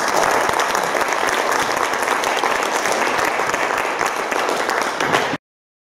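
Audience applauding, a steady dense clapping that cuts off abruptly about five seconds in.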